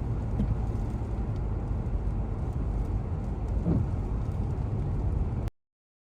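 Steady low rumbling outdoor noise from snowstorm footage, with no clear single event; it cuts off abruptly about five and a half seconds in.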